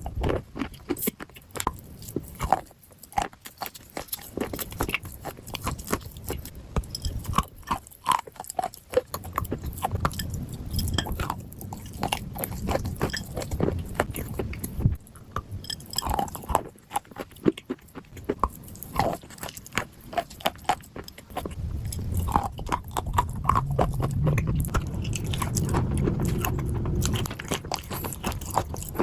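A person biting and chewing crunchy dry clay, close to the microphone: many sharp crunches and clicks, with stretches of steadier, lower chewing in between.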